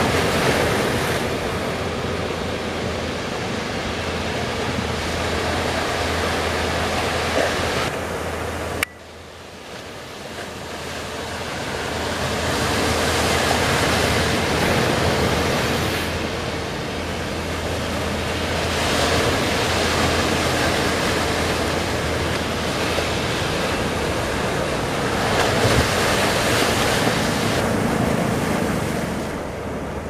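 Waves breaking and surf rushing, with wind buffeting the microphone and a low steady hum underneath. The sound drops off sharply about nine seconds in, then swells back up.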